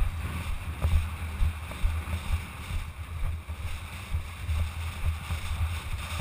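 Water sloshing and splashing against a horse's chest and neck as it moves through deep water, with an irregular low rumble on the microphone.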